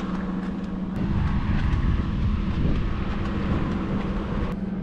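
A vehicle engine idling, a steady low hum, with a few faint clicks over it.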